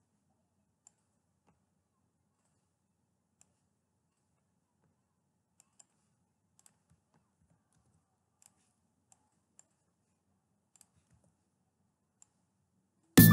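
A dozen or so faint, scattered computer mouse clicks, irregularly spaced, over a low background hum. Loud keyboard-and-synth music playback starts abruptly at the very end.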